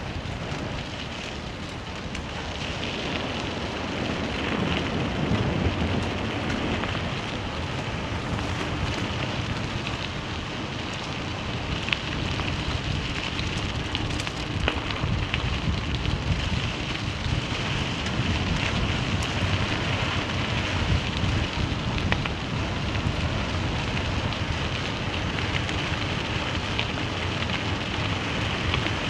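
Vehicle driving on a loose gravel road: a steady crunching noise of tyres on gravel, with scattered clicks of stones.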